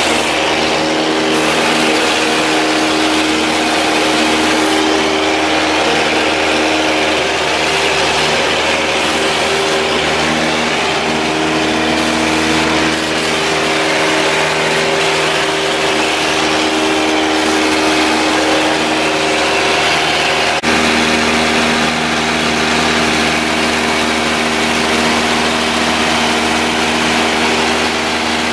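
Steady engine and propeller drone of a high-wing light airplane in flight, heard inside the cabin. About 21 seconds in there is a brief click, after which the drone's tone shifts slightly.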